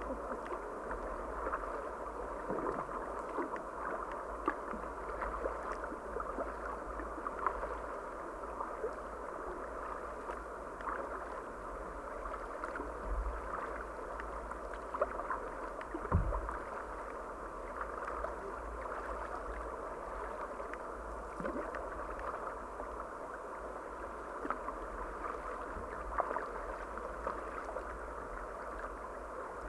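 River water gurgling and lapping around a kayak as it moves along, with small splashes and knocks scattered through and a low thump about sixteen seconds in.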